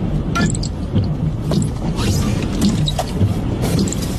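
Steady low rumble inside a moving vehicle, with scattered rattles and clicks.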